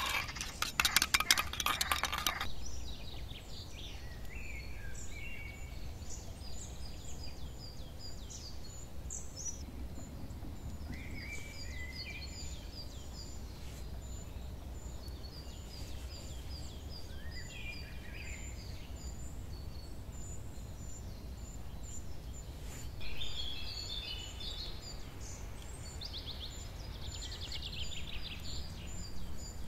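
A spoon rapidly clinking against a small metal bowl for about the first two seconds as egg yolk is beaten. Then birds chirping and calling over a steady low background rumble, with a quick trill near the end.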